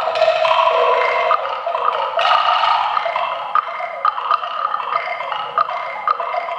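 Percussion ensemble playing a percussion concerto: many short, sharp clicking strikes over sustained ringing pitched tones.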